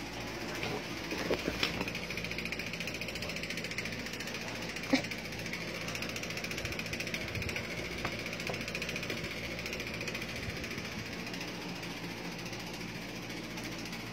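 Electric stand fan running steadily with a fast, even mechanical rattle and a low hum, and a few light knocks, the sharpest about five seconds in.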